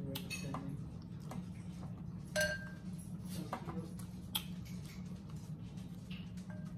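Spoons scraping and clinking against glass soup bowls in scattered light taps. One louder clink about two and a half seconds in rings briefly. A steady low hum runs underneath.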